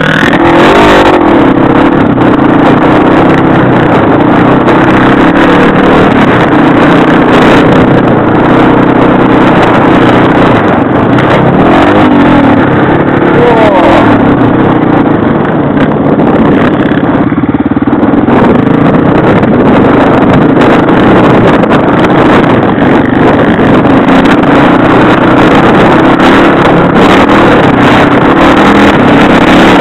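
Motorcycle engine running hard, close up, its pitch rising and falling with the throttle, with frequent short knocks over it.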